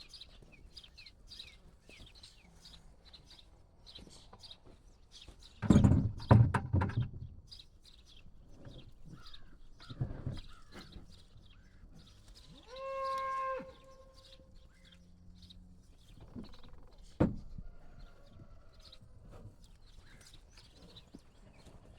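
Cattle, one giving a single short high moo past the middle. Earlier comes a burst of loud thumps and rustling, the loudest sound, and later a single sharp knock, with small bird chirps throughout.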